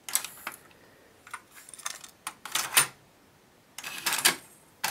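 Mechanical clicks and clacks from an Aiwa AD-F910 cassette deck as its front-panel button is pressed and its cassette door opens. They come in about five short clusters of sharp clicks with quiet gaps between.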